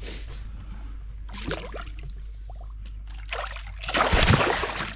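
Water splashing as a caught fish is released back into the river, with the loudest splash about four seconds in.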